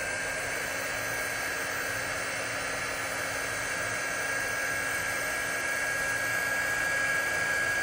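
Kuject 350W mini heat gun blowing steadily, its fan whining at a steady pitch, while it shrinks heat shrink tubing over a wire joint. It grows a little louder toward the end.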